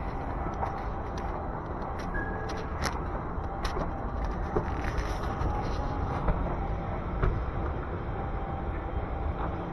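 Mall escalator running: a steady low rumble with scattered light clicks and ticks.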